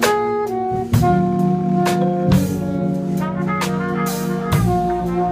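Live small-group jazz: saxophone and trumpet playing held melody notes together over a steady low line, with drum kit cymbal strokes.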